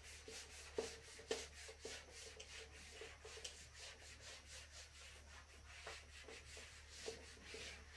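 Handheld whiteboard eraser wiping across a whiteboard in quick back-and-forth strokes, about three or four scratchy swishes a second, faint.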